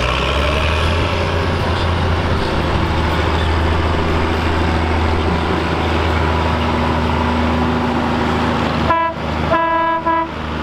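Case IH 1455 XL tractor's six-cylinder diesel running hard and steady while pulling a weighted sled. Near the end a horn toots twice.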